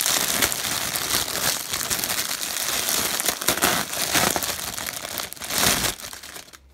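Clear plastic bag around a plush toy crinkling and rustling as it is handled and opened by hand; the crinkling stops about six seconds in.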